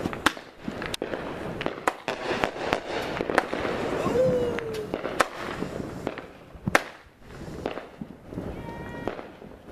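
Aerial fireworks bursting overhead: a string of sharp bangs and crackles at irregular intervals, the loudest about seven seconds in.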